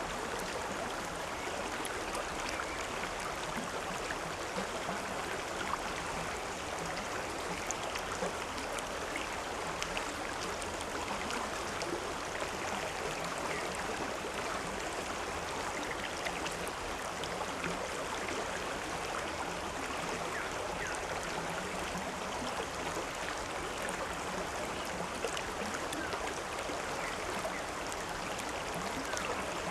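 Flowing river water rushing and babbling steadily over rocks.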